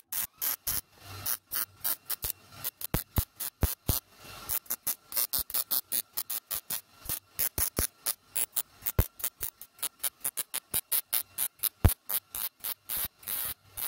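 Millermatic 211 MIG welder's arc crackling in rapid pulses, several a second, as short stitch welds are laid around a steel patch plate in a mower deck.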